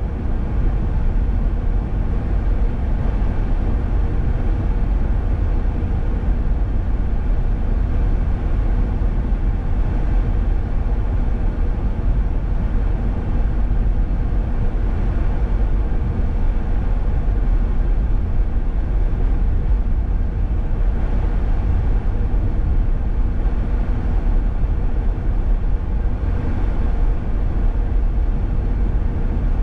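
Car driving along a highway at steady speed: a continuous low rumble of road and engine noise with no sudden events.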